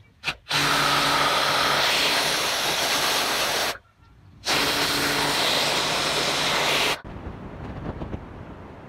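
Pressure washer jet spraying in two long bursts of about three seconds each, with a brief stop of under a second between them and a low hum underneath. After the second burst the sound drops to a much quieter noise.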